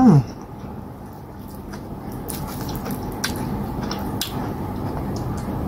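Wet, sticky eating sounds by hand: fingers squishing cassava fufu through slimy okra soup and mouth smacks, with several sharp wet clicks about two to four seconds in.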